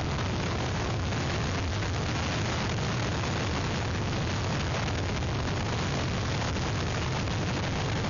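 Hurricane wind blowing hard across an outdoor webcam's microphone: a steady rushing noise with a heavy low rumble from the wind buffeting the mic.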